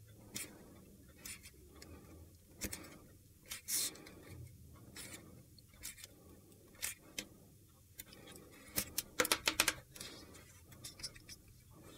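Tear-off adhesive tape being pulled from its roll and pressed along the edge of a cardstock strip: scattered small crackles and paper rustles, with a quick run of crackling about nine seconds in.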